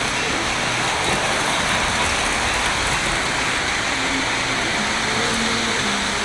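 Lionel model trains running on a large layout: a steady, dense rolling rumble and clatter of wheels on track. A faint low hum joins in past the middle.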